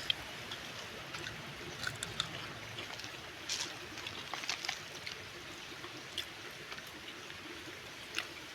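River water flowing steadily, with a few scattered light clicks and taps.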